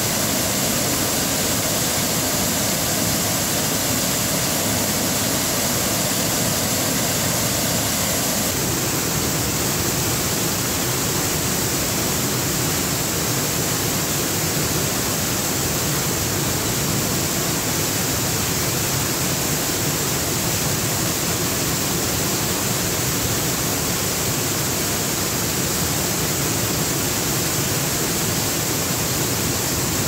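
Waterfall cascading over stepped rock ledges into a shallow pool: a loud, steady rush of falling water, its tone shifting slightly about eight seconds in.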